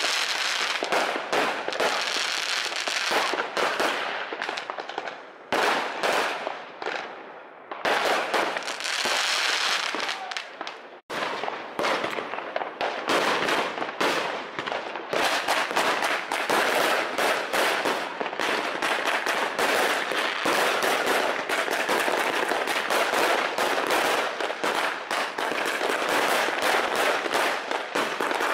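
Fireworks going off thick and fast: rockets and aerial bursts with a dense run of bangs and crackling. The sound breaks off abruptly a few times in the first ten seconds.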